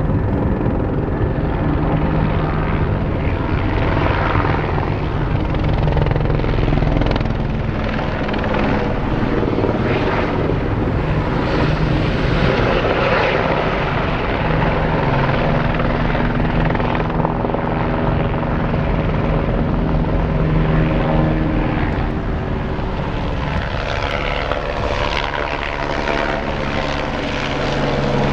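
Eurocopter AS 350 Écureuil helicopter flying with a water bucket slung underneath: steady rotor beat and turbine sound, its tone shifting near the end as it comes closer.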